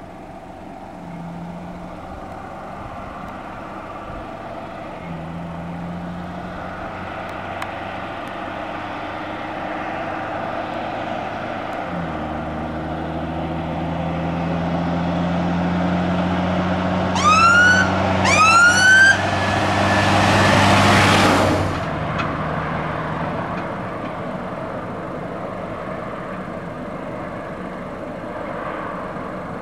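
A fire engine approaching on the road, its engine getting steadily louder, giving two short rising siren whoops about two-thirds of the way in. It then passes close in a loud rush of engine and tyre noise that drops off suddenly, and the engine fades away.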